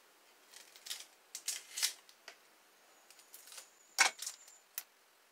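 Short crinkles and clicks of plastic produce bags and vegetables being handled on a kitchen counter, with a sharper knock about four seconds in.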